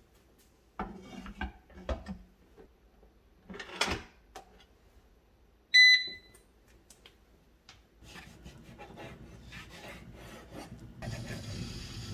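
Electric rice cooker being loaded and started: the metal inner pot and lid clunk and knock into place, then the control panel gives one short, sharp electronic beep about halfway through. Faint scraping strokes and a steadier noise follow near the end.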